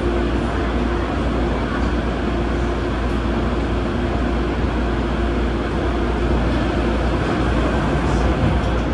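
MTR Tung Chung Line Adtranz-CAF electric multiple unit running: a steady rumble of wheels on rail with a steady hum over it.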